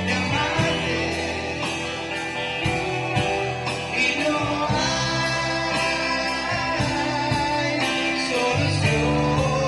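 Rock band playing live: singing over electric guitars, electric bass and drums.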